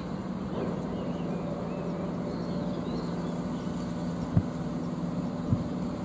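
Steady low engine drone of a passing naval survey ship over wind noise. Faint bird chirps come and go, and two short thumps fall about four and five and a half seconds in.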